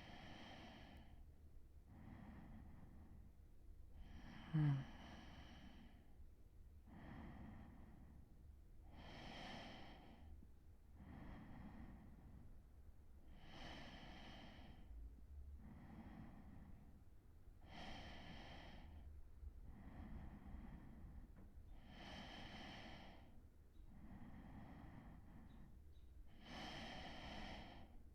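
A man's slow, steady breathing as he drifts toward sleep: soft in and out breaths at an even pace, a full breath about every four and a half seconds. About four and a half seconds in comes one short, louder sound from the throat.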